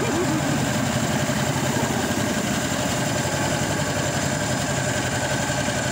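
Small boat motor running steadily, driving a wooden longboat along a river.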